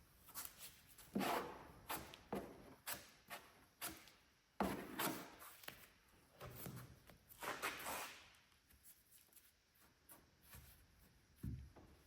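A spreader scraping and tapping as fiberglass-reinforced body filler (Vette filler) is mixed and worked: a run of short, irregular strokes for most of the first eight seconds, then fewer, with a dull thump near the end.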